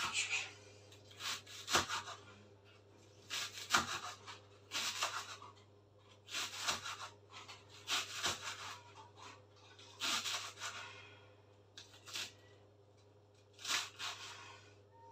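Kitchen knife slicing leeks finely on a wooden cutting board: a run of crisp cuts every second or two, with a sharp tap of the blade on the board now and then.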